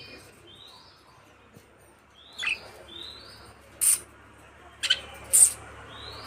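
Budgerigars chirping: short rising chirps repeated about once a second, with a few sharp, louder calls in the second half.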